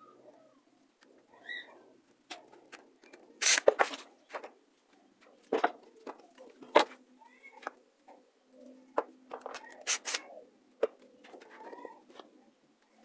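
Scattered knocks and clicks of parts and tools being handled on a wooden workbench, the loudest a few sharp knocks about three and a half, seven and ten seconds in.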